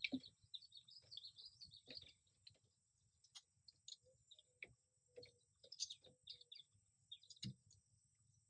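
Near silence with faint songbird chirping throughout and a few soft clicks.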